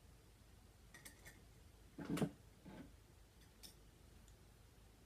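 Faint clicks and light clatter of makeup brushes and products being handled while a brush is searched for, with a louder knock about two seconds in.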